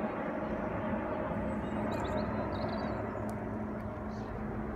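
Airbus A300-600ST Beluga's jet engines heard from the ground as the aircraft flies overhead and away: a steady, even jet noise with a faint low hum.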